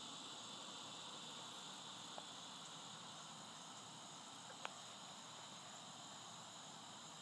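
Faint steady background hiss with a constant high-pitched drone, broken by two faint clicks about two and four and a half seconds in.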